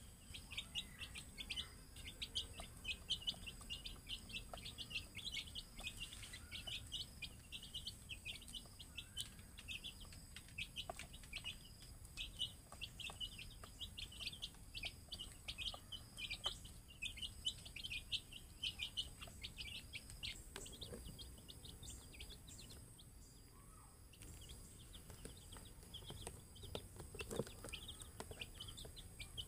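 A group of young chicks cheeping almost constantly in quick, high peeps, with a short lull about three-quarters of the way through.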